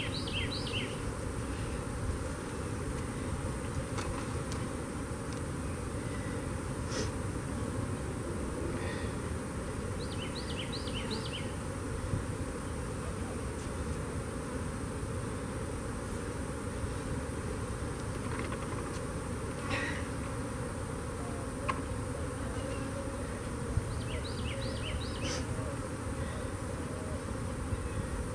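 Honeybees buzzing in a steady mass around opened hive boxes. A bird's short chirping phrase comes three times, with a few light knocks between.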